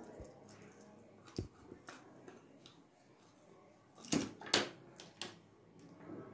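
Faint handling noise with scattered light clicks as the plastic body of an LED bulb and its circuit board are handled while wires are fed into it, with two sharper clicks about four seconds in.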